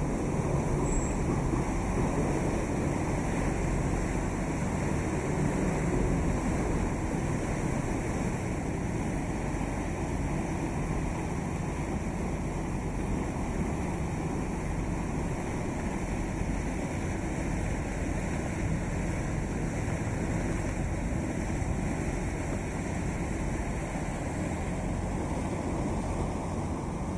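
Steady rush of wind and water heard from aboard a boat moving along a river, with a low rumble underneath.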